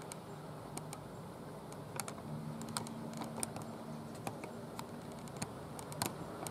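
Irregular sharp, light clicks, about twenty scattered over several seconds, the loudest near the end, over a faint steady low hum.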